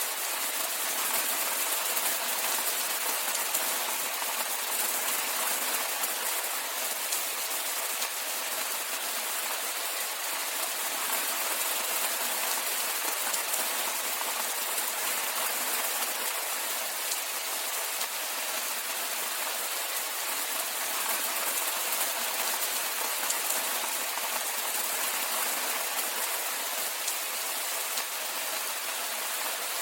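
Steady rain falling, an even hiss of countless drops on surfaces.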